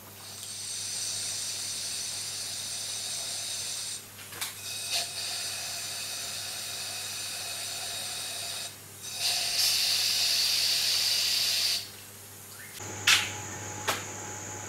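Compressed air hissing through an Eastwood DIY powder coating gun as it sprays powder, in three long bursts, the last one louder, with a couple of light clicks between the first two. Near the end, a steady low hum and a few sharp clicks.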